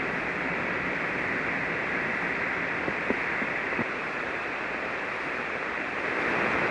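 Shortwave receiver hiss on a 40-metre single-sideband frequency with no station coming through: steady static through the radio, with a few faint clicks about halfway.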